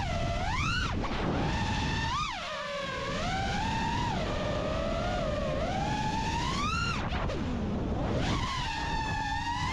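FPV racing quadcopter's brushless motors whining over a rush of wind. The pitch climbs and falls steeply with each throttle change, with sharp rises about a second in, near two seconds and near seven seconds, and a brief plunge in pitch just after seven seconds before it picks up again.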